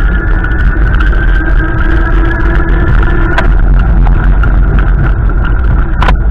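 Strong storm wind buffeting the microphone as a loud, dense low rumble, with a steady whine over it. There is a sharp knock about three seconds in and another near the end.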